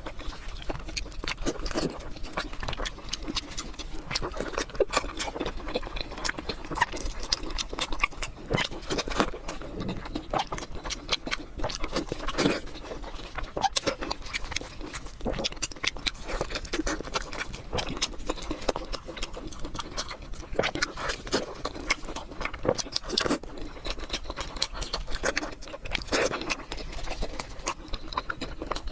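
Close-miked eating sounds: chewing, smacking and biting food, a dense, irregular run of small clicks without a pause.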